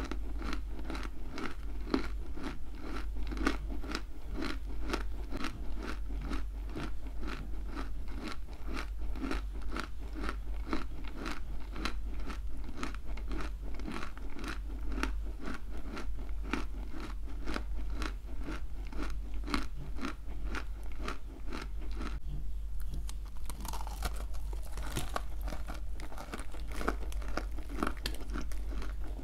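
Close-miked chewing of a mouthful of dry edible clay: a steady run of gritty crunches, about two to three a second, easing briefly near the end before resuming.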